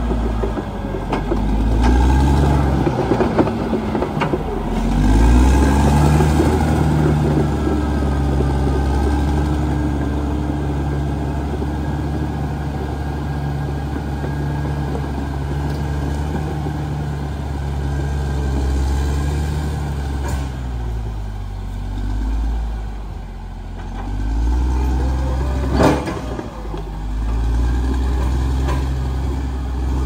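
Caterpillar D6R XL bulldozer's diesel engine running under load, its revs rising and falling several times as it works through brush. A single sharp crack near the end.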